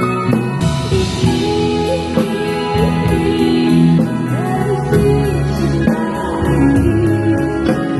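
A live band with drum kit playing a song, with a singing voice over guitar and bass. Cymbals wash bright from about one to four seconds in.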